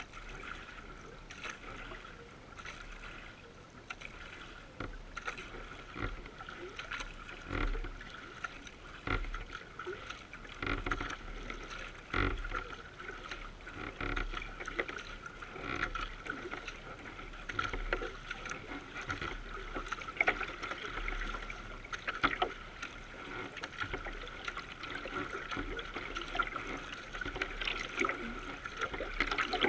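Water rushing and splashing along the bow of a racing kayak under way, in uneven surges, picked up close to the hull.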